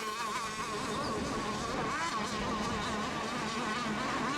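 Several radio-controlled racing boats' small engines running together with a high, buzzing whine, their pitch wavering up and down as the boats race around the course.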